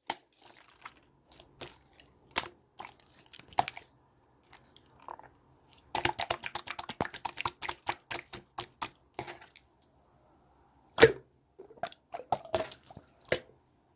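Green slime being squeezed and poked by hand, making sticky clicks and small pops. A quick run of clicks comes about six seconds in, and a louder pop follows about eleven seconds in.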